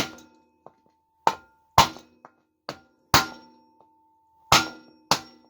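Hammer blows on a wood block, driving a Tange-Seiki Passage threaded headset's lower cup into a bicycle frame's head tube. There are about seven hard, irregularly spaced strikes with a few lighter taps between, and each leaves a short metallic ring.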